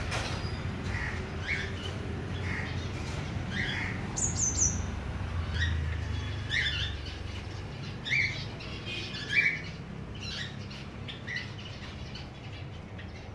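Fawn Java sparrow chicks giving short chirps about once a second, with a brief higher, falling call about four seconds in, over a steady low rumble.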